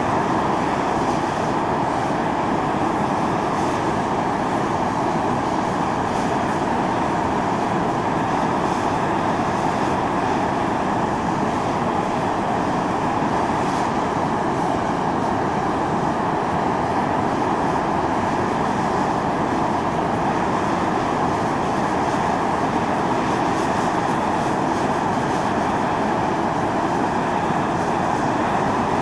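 Volcanic fumarole jetting steam under pressure: a loud, steady rushing hiss that holds even, with no breaks or changes.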